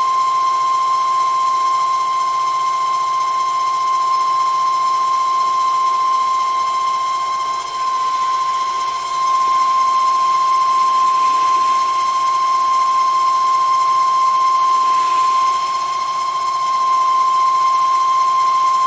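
Small CNC lathe running the roughing pass of an automatic turning cycle, giving a steady high whine at one unchanging pitch, with the level dipping briefly twice, about eight and sixteen seconds in.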